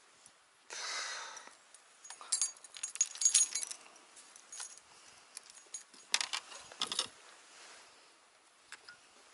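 Small metallic clicks and rattles of fishing tackle handled by hand: the weight and hook of a jika rig knocking against a baitcasting reel and rod. The clicks come in small clusters, with a brief rustle about a second in.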